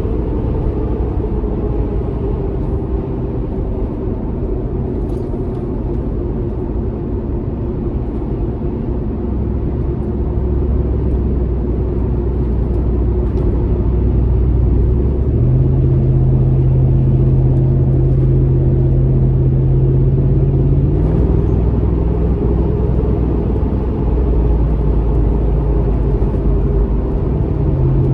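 Cabin sound of a Toyota 4.7-litre V8 breathing through a stainless Magnaflow Overland cat-back exhaust: a steady low engine drone under way, mixed with road noise. It grows louder around the middle, and a strong low hum sets in past the middle and shifts in pitch a few seconds later.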